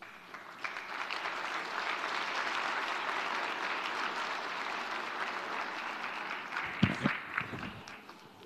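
Audience applauding, dying away near the end. A couple of dull thumps about seven seconds in.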